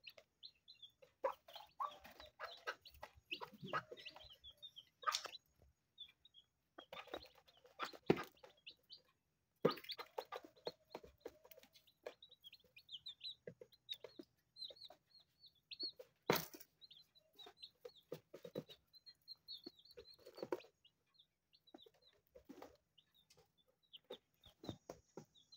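Day-old chicks peeping in quick, high, near-constant chirps while the mother hen clucks low at intervals, calling them to the food. A few sharp taps stand out, the loudest about two-thirds of the way through.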